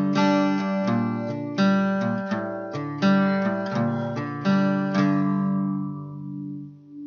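Acoustic guitar music: strummed chords struck every second or so, the last chord about five seconds in left ringing out and fading.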